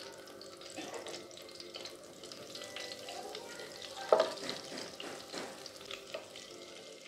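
Margarine melting and sizzling in a little hot oil in a nonstick wok, stirred with a silicone spatula; a faint crackle with small clicks, and one louder knock about four seconds in.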